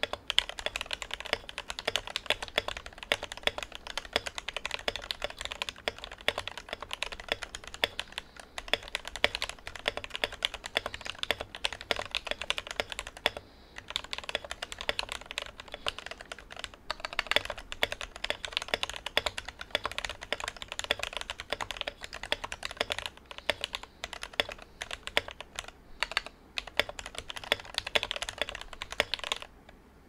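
Fast touch-typing, about 100 words a minute, on a Protozoa P.01 mechanical keyboard with lubed and filmed Tealios V2 linear switches, 45 g springs and an aluminium plate. The keystrokes form a dense, steady stream, with a brief pause about halfway and a stop just before the end.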